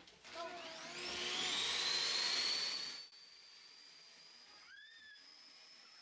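Canister vacuum cleaner's motor spinning up with a rising whine and rushing air. About three seconds in, the rushing drops away sharply, leaving a faint high whine that keeps slowly rising.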